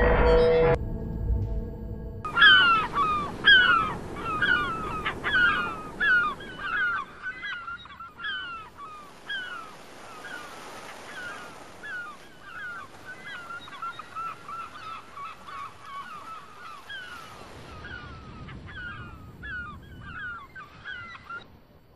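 A flock of geese honking: short overlapping calls about two a second, loud at first, then growing fainter and sparser.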